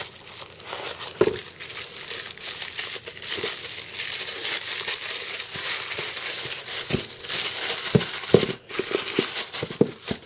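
Packing material crinkling and rustling as it is handled and pulled aside, with scattered sharp clicks and knocks.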